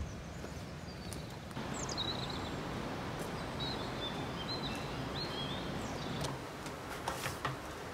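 Steady outdoor background hiss with small birds chirping a few short calls in the middle, and a few faint taps near the end.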